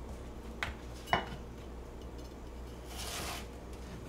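Kitchen knife cutting Korean radish on a plastic cutting board: two knocks of the blade on the board about half a second apart, the second louder with a short ring, then a brief scrape near the end.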